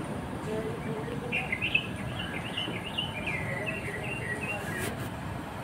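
A songbird singing: a quick series of short, high chirping notes that rise and fall, starting about a second in and running for about three seconds, over low steady background noise.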